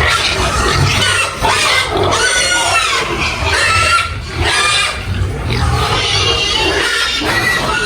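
Pigs squealing, a string of high arching squeals one after another over a low rumble.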